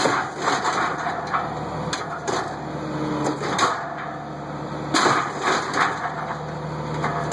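Cotton module builder packing cotton: a steady engine hum with irregular knocks and clatters from the tramper carriage and ram, more of them in quick succession about five seconds in.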